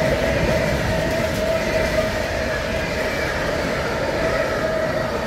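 Freight train's container flat wagons rolling past at speed: a steady rumble of steel wheels on rail, with a steady whining tone above it.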